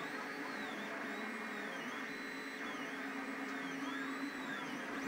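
FDM 3D printer printing: its stepper motors whine in rising and falling pitch sweeps, about one a second, as the print head moves back and forth. Under them is the steady hum of the print head's cooling fans.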